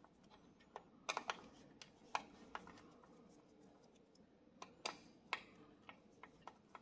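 Faint, sparse light clicks and taps, a dozen or so at uneven intervals, from hand tools and small parts as a welding machine is taken apart to remove its circuit card.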